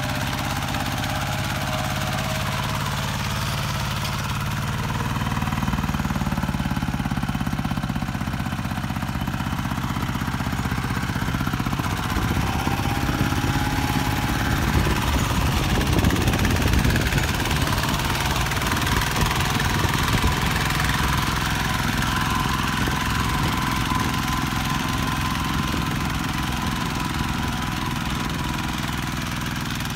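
Single-cylinder diesel engine of a Kubota RT120 walk-behind tractor running steadily under load while ploughing, a little louder in the middle.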